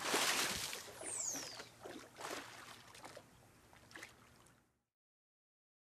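Water splashing and sloshing, with a short falling whistle about a second in, dying away in smaller splashes until it cuts to silence a little before the end.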